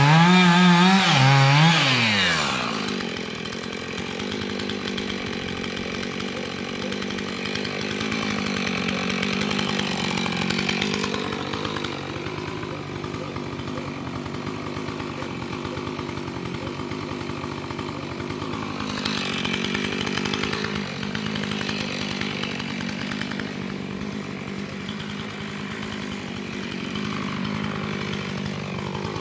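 Two-stroke chainsaw revving hard, its pitch wavering, for the first two or three seconds, then running steadily at high speed as it cuts into a cherry tree trunk.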